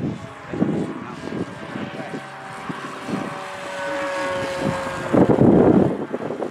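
Electric RC Flite Test Cub flying overhead, its motor and propeller giving a steady whine that slides slightly lower about four seconds in. A loud rushing noise comes in about five seconds in.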